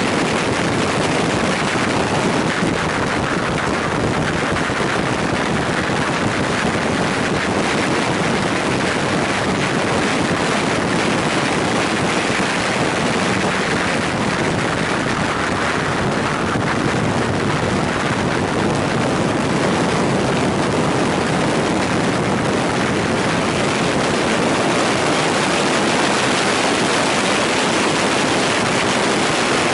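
Steady wind rush over the microphone of a motorcycle-mounted camera riding at road speed, with the BMW R nineT's running engine beneath it.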